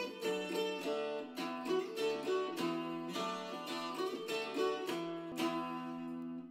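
Instrumental background music on plucked strings, a quick run of picked notes that ends on a final strummed chord about five seconds in, held and fading out.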